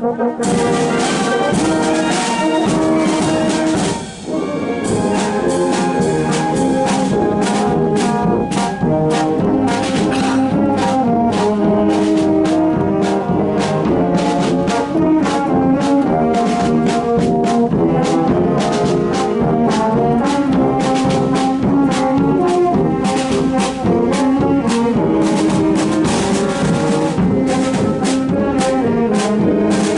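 A Portuguese filarmónica wind band plays, with brass holding the tune over a steady drum beat. The music dips briefly about four seconds in, then carries on.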